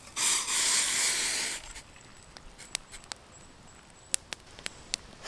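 Hot water poured from a camping pot into a metal mug, a rushing pour lasting about a second and a half, then a few faint clicks and taps.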